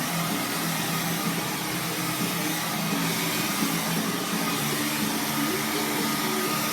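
Hair blow dryer blowing steadily, its motor and airflow making a constant loud rush.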